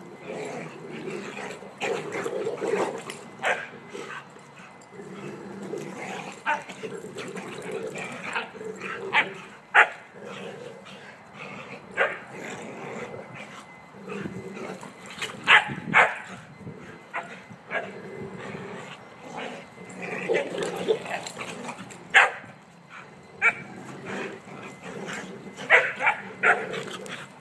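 Three dogs play-fighting, one of them a five-month-old puppy, growling almost without pause. Sharp barks and yips break in every few seconds.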